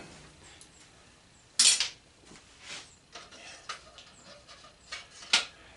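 Metal clinks and clacks of small faucet parts and tools being handled and set down on a workbench: a sharp clack about a second and a half in, lighter ticks after it, and another sharp clack near the end.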